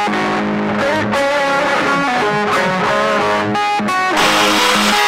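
Background music led by electric guitar, turning fuller and a little louder about four seconds in.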